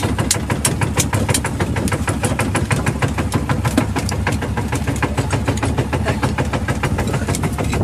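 A boat engine running steadily, with an even, fast beat of several knocks a second.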